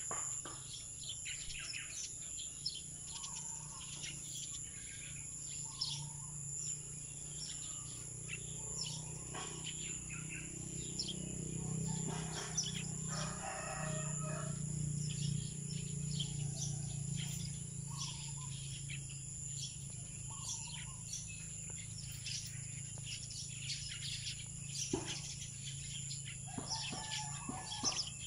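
Small birds chirping and tweeting with many short calls, and a rooster crowing once about halfway through.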